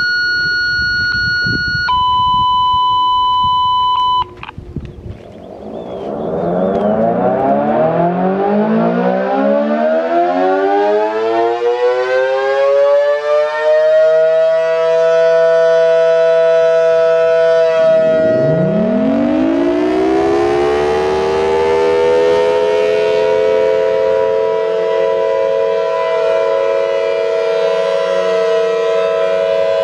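Two long electronic beeps, a higher one then a lower one. Then an outdoor warning siren winds up slowly into a steady multi-tone chord, and about two-thirds of the way through a second siren winds up quickly beside it, both holding a steady alert tone.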